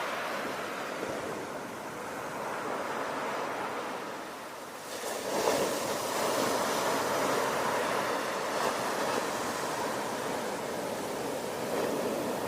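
Ocean surf washing steadily, with a wave breaking and surging about five seconds in.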